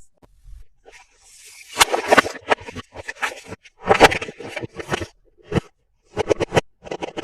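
Plastic toys and packaging being handled up close. A scrape about a second and a half in is followed by a string of sharp clicks and knocks, with a quick run of clicks near the end.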